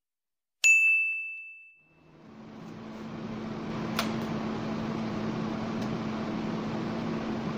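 A single bright bell 'ding' sound effect that rings out over about a second. Then a steady hiss with a low hum fades in and holds, with one sharp click about four seconds in.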